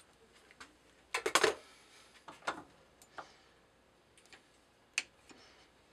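Scattered metal clicks and knocks of hands handling tools and parts at a metal lathe, with a cluster of louder knocks about a second in and single clicks after.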